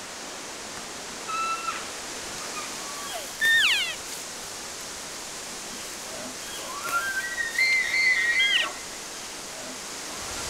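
Elk calling: a short cow-elk mew, then a loud high whistle that drops steeply in pitch about three and a half seconds in. Near the end comes a bull elk's bugle that climbs and holds a wavering high whistle for nearly two seconds, all over a steady background hiss.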